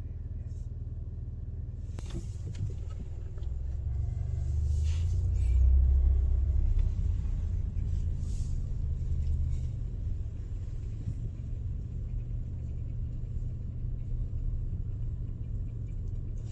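A car driving, heard as a steady low rumble of engine and road noise that swells to its loudest about four to seven seconds in, then settles.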